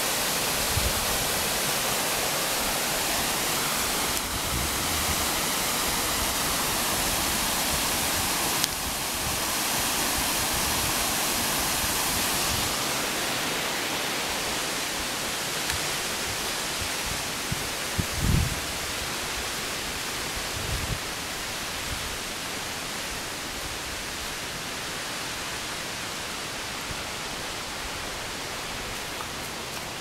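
Steady rushing of a mountain waterfall, growing gradually fainter after about twelve seconds, with a couple of brief dull thumps.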